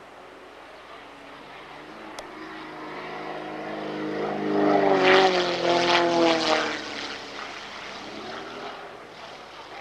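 Extra 300 aerobatic plane's propeller engine passing low: its drone builds to loudest about halfway through, drops in pitch as it goes by, then fades.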